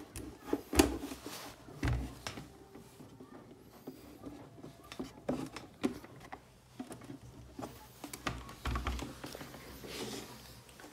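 Handling noise as a patient monitor and its power cable are moved about on the bench: scattered clicks and knocks, with louder low thumps about a second in, two seconds in and again late on.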